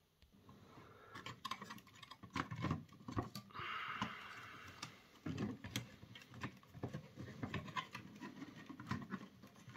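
Hands handling the opened plastic toy cassette player, moving the circuit board and wires and working the motor bracket loose: scattered light clicks and taps, with a brief rubbing scrape about three and a half seconds in.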